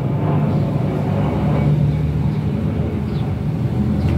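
Steady low mechanical drone, like a motor running, continuous and unchanging.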